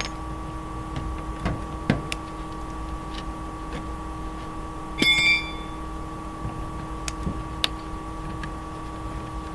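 Old garage door weather strip being pried off: scattered knocks and clicks, and about five seconds in a brief high squeal, over a steady hum.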